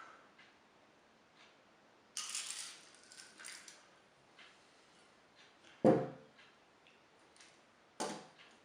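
Plastic airsoft BBs rattling and clinking in a container in a few short bursts, then a sharp knock about six seconds in and another near the end.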